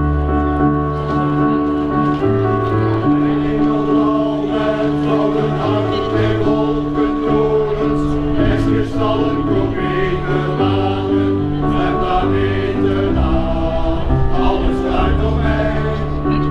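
A vocal group singing together over an accompaniment of held chords and a bass line that steps from note to note.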